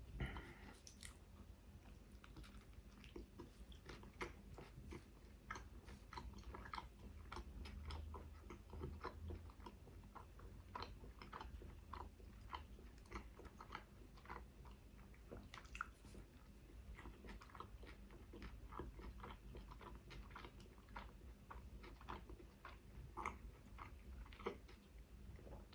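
Close-miked chewing and biting of a chicken shawarma wrap: a steady run of irregular wet mouth clicks and small crunches.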